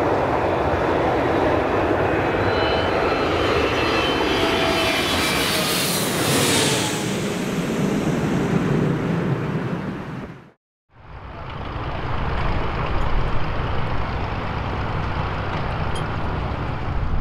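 Jet aircraft passing low overhead: a loud rushing engine noise with whining tones that fall in pitch as it goes by, fading out about ten seconds in. After a brief silence, a steady, slightly quieter rumble.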